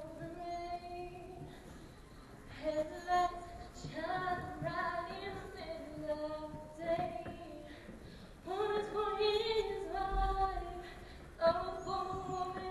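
A girl's voice singing unaccompanied, in phrases of long held notes with short breaths between them.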